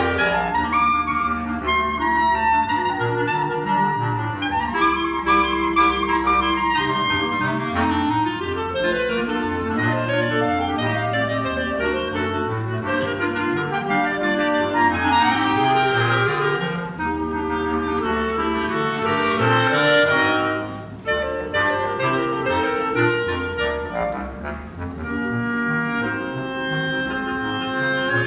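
A clarinet quintet of four soprano clarinets and a bass clarinet playing together. Several interwoven melodic lines sound over a bass clarinet line moving in the low range, briefly softening twice in the second half.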